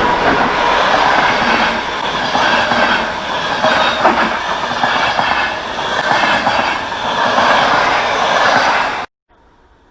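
Train running on the track, its wheels clattering and rumbling with some wheel squeal over the rails; the sound cuts off suddenly near the end.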